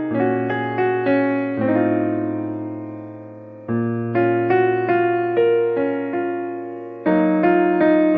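Background music: a gentle piano melody over held bass notes, played in phrases of struck notes with a long sustained chord in the middle.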